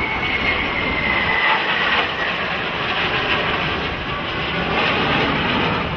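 Jet engine noise of two F/A-18 Hornets flying past in buddy-refueling formation: a steady rushing sound with a high whine that falls slightly in pitch over the first two seconds as they go by.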